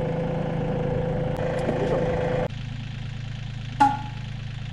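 Yanmar 30-horsepower diesel tractor engine idling steadily. About two and a half seconds in, the sound drops to a quieter, more distant low hum. Near the end a single short, sharp chirp cuts through.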